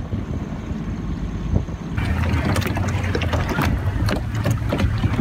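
A boat's engine rumbling low under wind on the microphone and the wash of water. About two seconds in the sound changes abruptly to close water lapping and splashing, with many short slaps over a steady low rumble.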